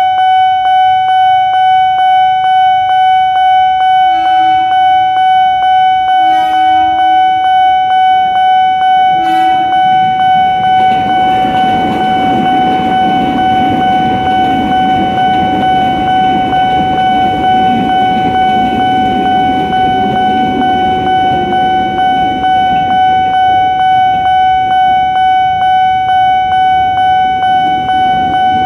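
Level-crossing alarm bell ringing steadily, pulsing about twice a second. A KRL commuter electric train sounds three short horn blasts about 4, 6 and 9 seconds in, then rumbles past over the crossing from about 11 seconds on.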